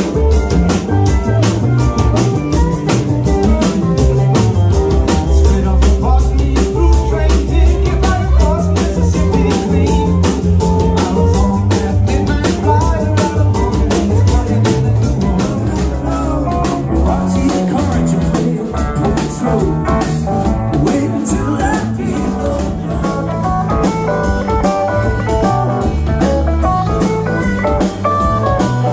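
Live rock band playing: electric guitars, bass guitar, drum kit and keyboard, with a steady drum beat throughout.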